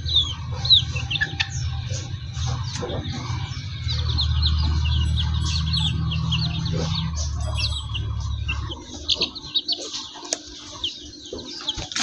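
Young chickens peeping and chirping while they forage, in many short, falling chirps. Under them runs a low steady rumble, loudest in the middle, that stops about nine seconds in.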